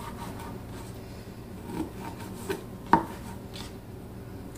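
Kitchen knife slicing raw beef liver on a plastic cutting board, with a few knocks of the blade against the board, the sharpest about three seconds in.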